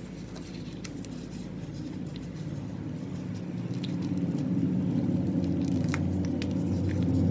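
Slime being pressed, kneaded and stretched by hand: sticky squishing with small scattered clicks and pops, growing louder toward the end.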